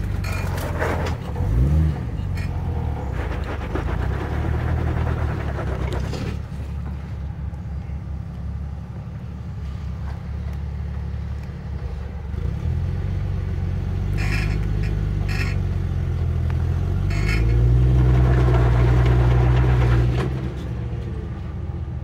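Off-road vehicle engine working up a rocky trail, revving in pushes, loudest for a few seconds near the end, with a few short knocks and clatter in between.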